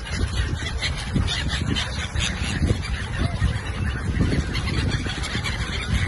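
A large flock of gulls calling over one another in a dense, continuous chatter of short cries, over a steady low rumble.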